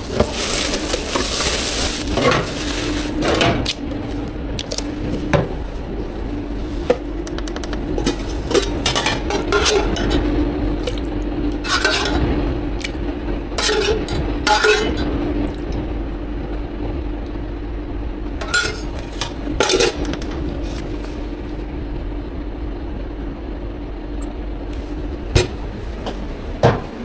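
Drink-prep clatter at a bubble tea counter: utensils, cups and containers clinking and knocking at irregular moments over a steady machine hum, with a hiss for the first couple of seconds.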